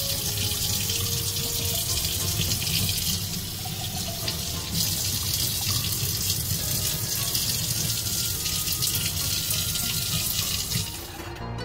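Kitchen faucet running a thin stream of water onto a whetstone over a stainless steel sink: a steady splashing hiss that stops near the end.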